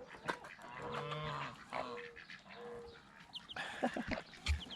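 Poultry calling: a drawn-out pitched call about a second in, then a few short high peeps from chicks near the end.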